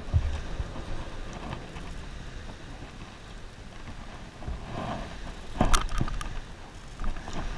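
A bluefish being handled and put back in the water: water splashing and dripping over a low steady rumble, with two sharp splashes close together about six seconds in.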